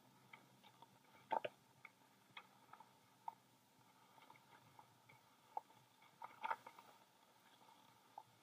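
Near silence with faint, irregular clicks and creaks while riding a ski drag lift up the slope. The loudest click pair comes about a second and a half in, and a small cluster comes past the middle.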